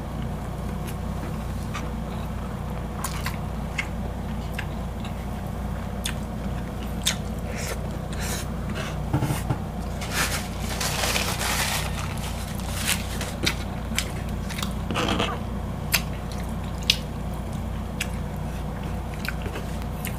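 Close-up mouth sounds of people eating: chewing with scattered crisp crunches and wet clicks, thickening into a denser spell of crunching about halfway through. A steady low hum runs underneath.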